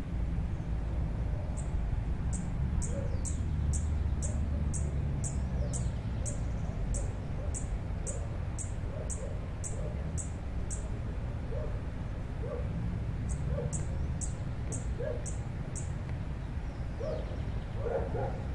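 Sparkling violetear hummingbird singing from its perch: a long run of short, high, sharp chip notes at about two a second, a pause of a couple of seconds, then a shorter run. A low background rumble runs underneath.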